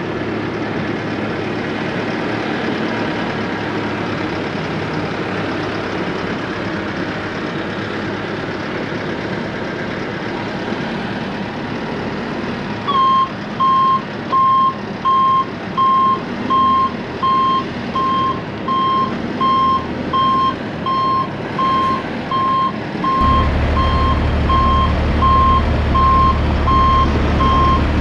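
A diesel machine runs steadily. About halfway in, its reversing alarm starts beeping repeatedly at an even pace, and a few seconds before the end a deeper, louder engine drone joins in.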